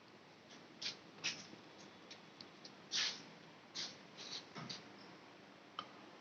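A series of short, irregular scrapes and clicks, the loudest about three seconds in, with a sharp click near the end.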